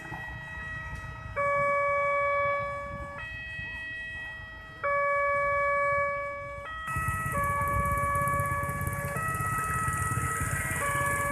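Railway level crossing warning siren, a distinctive electronic siren playing a sequence of held tones that step up and down in pitch, each lasting one to two seconds; two of the tones, about a second and a half in and about five seconds in, are much louder. From about seven seconds in, a steady rumble of traffic noise joins it.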